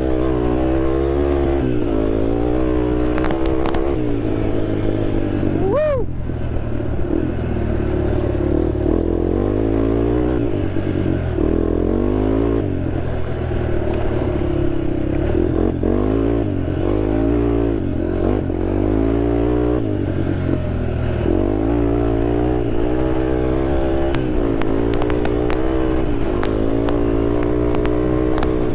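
Honda TRX sport quad's engine running under load off-road, its pitch rising and falling continually as the throttle is worked. Scattered clattering knocks from the machine over rough ground, a few near the start and a cluster near the end.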